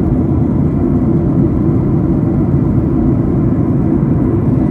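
Steady low roar of a jet airliner in cruise, heard inside the cabin: engine and airflow noise, even and unchanging.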